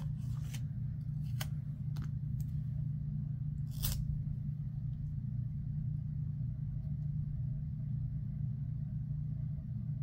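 Paper planner stickers being peeled from their sheet and pressed onto a page: a few soft clicks and a brief crackle of peeling paper about four seconds in, over a steady low hum.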